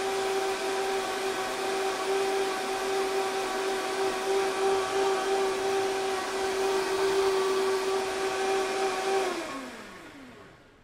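Vitamix blender running loud with a steady high motor whine. About nine seconds in it is switched off, and the whine falls in pitch as the motor winds down to a stop.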